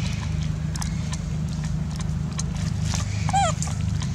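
A baby macaque gives one short, high squeal that bends in pitch about three seconds in. Underneath are a steady low hum and a few light clicks.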